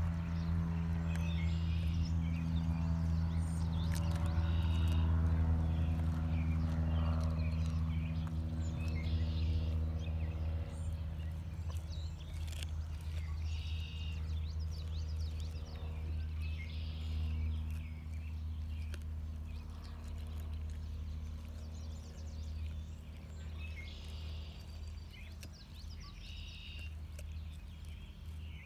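Black Labrador chewing and crunching a frozen bluegill, with scattered sharp clicks of teeth on frozen flesh and bone. A steady low hum runs underneath and fades over the first half, and short high bird calls come every few seconds.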